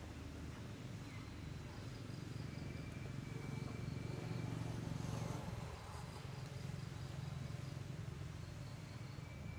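Outdoor background: a steady low rumble with faint, repeated high insect chirps.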